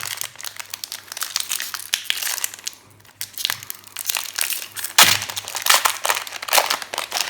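Foil booster pack wrapper crinkling as it is handled and opened. It goes quiet briefly about three seconds in, then crinkles louder near the end.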